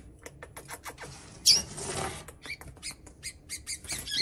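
Caged coleiros (double-collared seedeaters) during a mating attempt: quick light clicks and taps throughout, with one loud, harsh squawk about a second and a half in.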